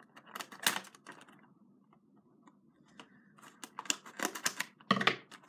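Small cardboard toy box and its plastic packaging being opened and handled: a few sharp clicks and crinkles at first, a quieter pause, then a quick run of clicks and rustles near the end.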